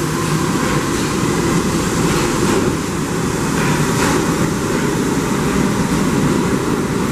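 New York City subway train running on the track, a steady, loud rumbling noise with no pauses.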